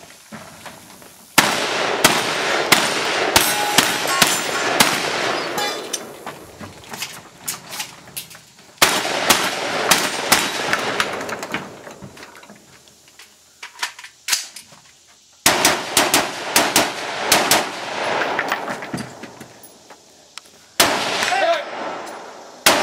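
Rapid gunfire from a shooter running a 3-gun competition stage. Four strings of quick shots, each followed by a lull of a few seconds.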